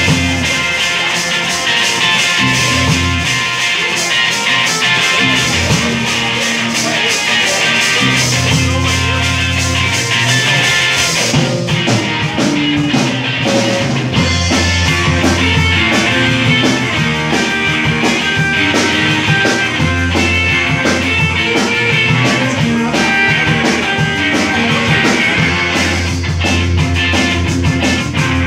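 Live rock band playing: electric guitars, electric bass and drum kit going at full volume with a steady beat.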